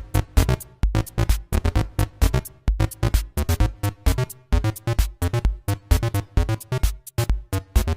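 Electronic synth jam: a Behringer MS-1 monophonic analogue synthesizer plays a fast run of short, staccato sequenced notes with a little reverb, driven by a Turing Machine Eurorack sequencer. Eurorack drum modules beat a low kick pattern underneath.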